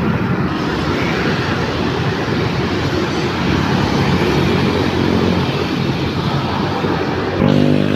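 Steady road traffic, with motor scooters and cars driving past close by, their engine and tyre noise blending into one continuous rush.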